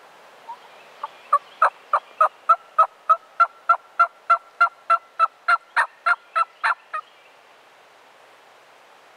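Turkey yelping: a long, even series of about twenty loud yelps, about three a second, lasting some six seconds after a couple of softer opening notes.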